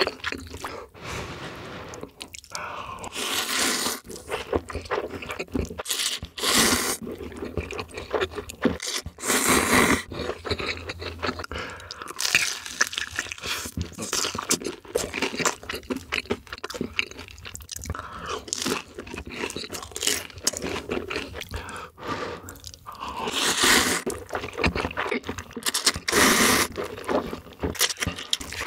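Close-miked eating: crisp crunching as bites are taken from a crusty fried bun, with chewing and several louder rushes of noise from eating the noodles.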